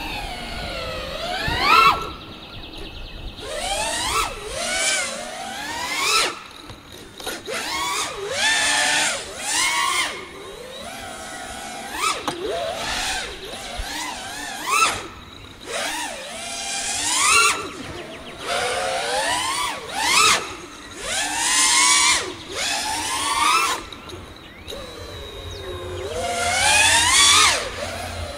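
Brushless motors and propellers of a six-cell five-inch FPV freestyle quadcopter whining, heard from the camera on board. The pitch sweeps up and falls back every second or two with throttle punches, and the sound drops away briefly several times where the throttle is chopped.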